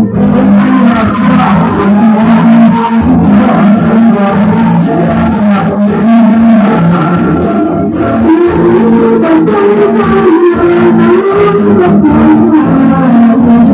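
Music with plucked guitar, a melody line weaving over steady sustained tones.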